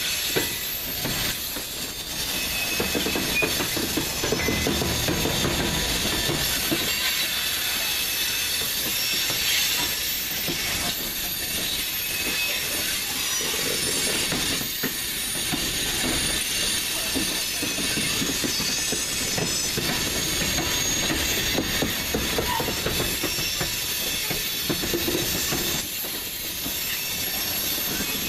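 A CSX freight train's cars (covered hoppers, a gondola, then tank cars) rolling steadily past at close range. Their steel wheels rumble and knock as they cross the track and its diamond crossings, with a faint high wheel squeal.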